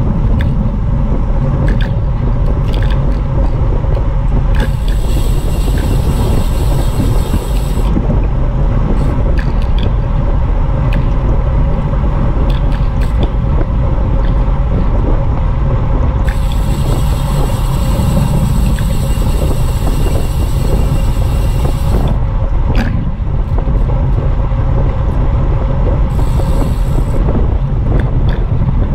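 Wind buffeting an action camera's microphone on a road bike moving at racing speed, over the rumble of tyres on the road, with scattered short knocks. A higher hiss joins in twice for a few seconds, about five seconds in and again about sixteen seconds in.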